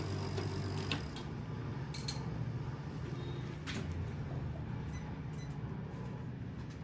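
Steady low background hum with a few faint clicks and taps.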